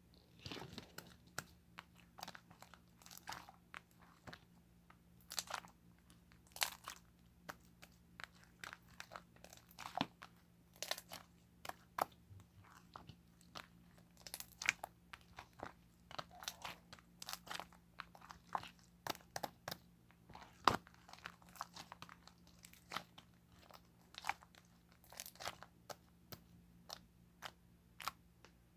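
Irregular crisp crunches close to the microphone, about two a second, over a faint steady low hum.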